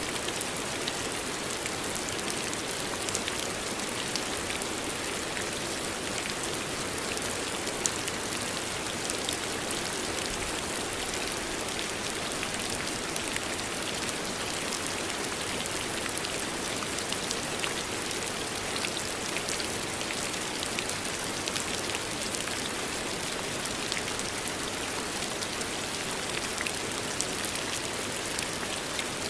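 Steady rain falling, an even hiss dotted with the patter of individual drops on a surface.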